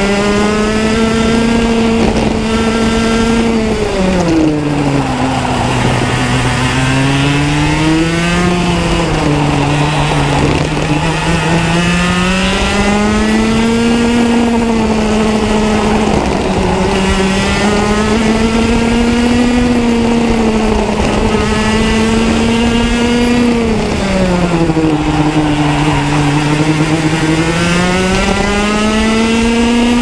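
125cc two-stroke racing kart engine at full race pace. Its pitch climbs steadily on the straights and drops sharply each time the driver lifts and brakes for a corner, about four seconds in and several times after.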